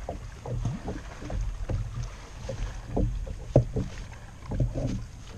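Irregular knocks and rustling of an angler shifting and handling gear in a fishing kayak while playing a hooked fish, over a low rumble. The loudest knock comes a little past the middle.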